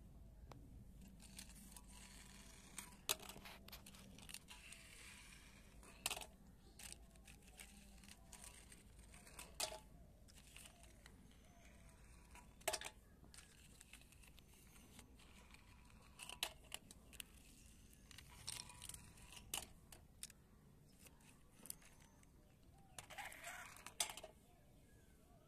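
Plastic toy cars being handled and set down on a stone slab: scattered sharp clicks and knocks a few seconds apart, with short bouts of rustling.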